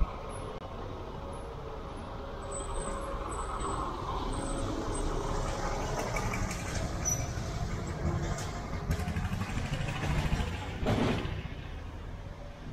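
Motor vehicle traffic going past, growing louder a few seconds in, with a short loud hiss-like surge near the end.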